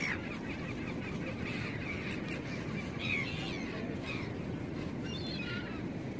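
A flock of seagulls calling, with a quick run of short calls in the first two seconds and then scattered single calls, over a steady rush of wind and sea.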